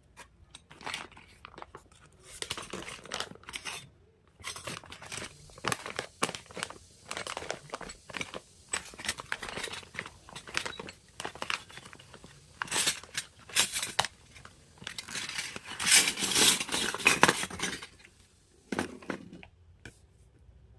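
Plastic packaging crinkling and tearing as a miniature plastic toy kitchen set is unboxed, in irregular bursts of rustling that are loudest about sixteen to seventeen seconds in.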